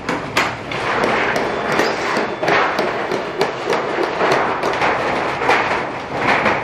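Long-handled hand shears cutting through a thin stainless steel sheet: a run of irregular crisp snips, with the thump and rattle of the large sheet flexing as it is bent back.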